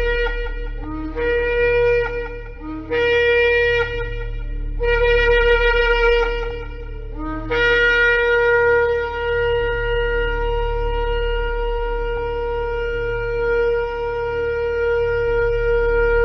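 Shofar blowing: several short blasts, each stepping up from a lower note to the main note, then one long held blast from about halfway through.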